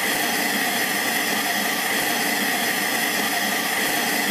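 Steady hiss of TV static, the white noise of an untuned analogue television.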